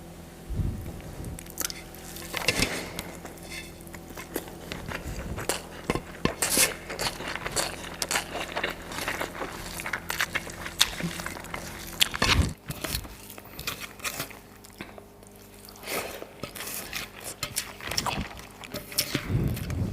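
Close-miked eating: irregular bites, crisp crunches and chewing of a rice-and-curry meal, over a faint steady low hum.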